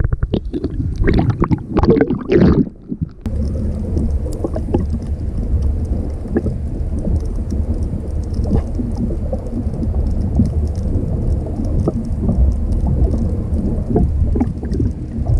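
Steady low rumble of a fishing boat's engine, with wind on the microphone. The rumble sets in suddenly about three seconds in, after a run of short knocks.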